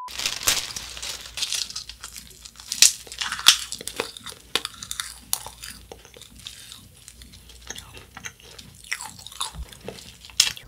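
Close-miked biting and chewing of wafer flying-saucer candies (space candy): a run of crisp crunches as the thin wafer shells break, loudest about three seconds in, then softer chewing with a few more crunches near the end.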